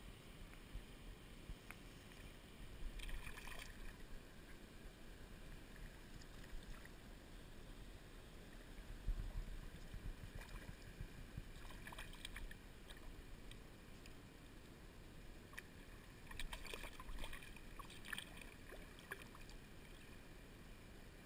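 A hooked trout splashing at the water's surface as it is played on a fly rod, in a few short bursts of splashing about 3 s, 12 s and 16 to 19 s in, over a faint low rumble.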